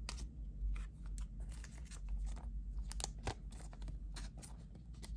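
Trading cards and plastic packaging being handled: scattered light rustles, small clicks and scrapes.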